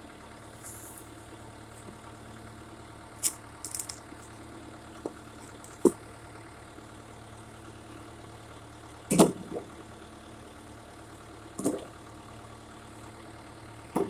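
Backhoe engine idling steadily, with a few short, sharp knocks and clatters over it, the loudest about nine seconds in.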